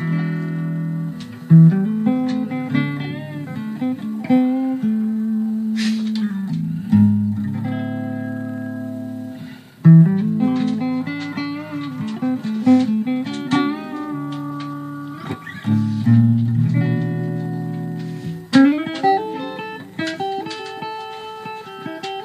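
Electric guitar playing a slow blues solo: picked single notes and short phrases, with bent, wavering notes and short pauses between phrases.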